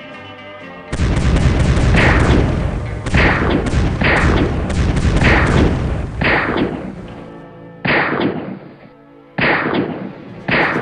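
Gunfire: a rapid, overlapping string of shots for about six seconds, then three single shots spaced roughly a second and a half apart, each ringing out briefly.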